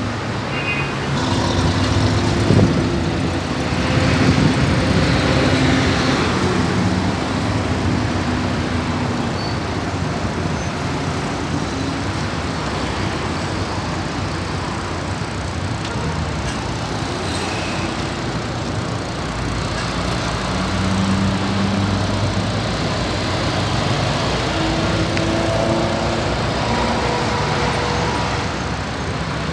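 Steady city road traffic, with vehicle engines passing. The engine sound gets louder about four seconds in and again about twenty seconds in.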